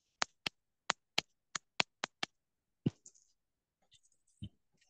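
Computer keyboard keystrokes: a quick run of about eight sharp clicks over the first two seconds, then a single click about three seconds in and a softer one near the end.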